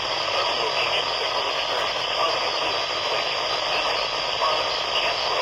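Steady hiss of static from a weather radio receiver, with no voice coming through.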